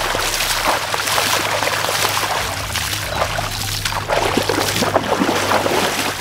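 Shallow lake water splashing and sloshing as hands are scrubbed in it and a dog wades through the water beside them.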